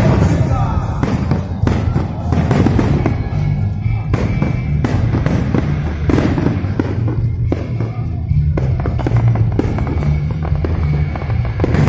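Aerial fireworks display: a rapid, unbroken string of bangs and crackles as shells burst overhead, with music playing underneath.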